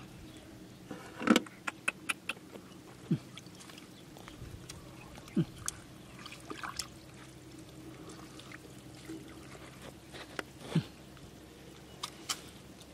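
Hands groping and dabbling in shallow river water among rocks while hunting for clams: small splashes and drips with scattered sharp clicks, the loudest about a second in.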